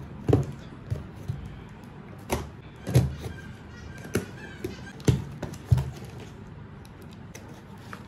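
A small packaging box being opened and handled: a few separate knocks and thuds, with some rustling in between.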